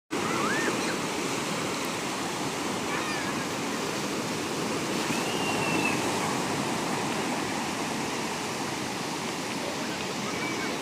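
Sea surf washing onto a beach in a steady, continuous rush, with a few faint, short high-pitched cries in the distance now and then.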